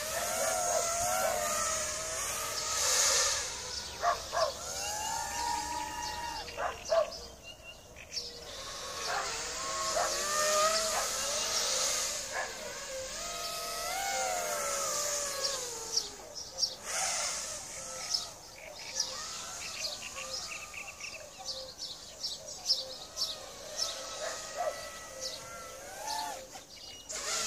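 Racing quadcopter's brushless motors (Racerstar 2205 2600KV) and tri-blade props whining in flight, the pitch rising and falling again and again as the throttle changes.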